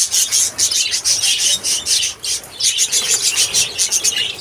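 A flock of lovebirds chattering, with many shrill chirps overlapping in a dense, continuous din.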